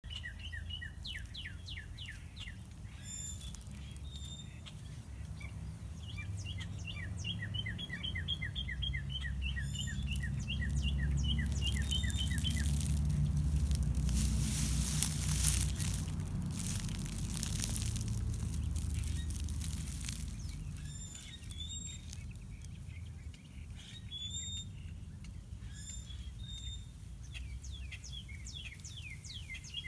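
Small birds chirping in quick trains of repeated notes, several a second, over a steady low rumble. About halfway through a rushing noise swells for several seconds, then fades, and the chirping comes back near the end.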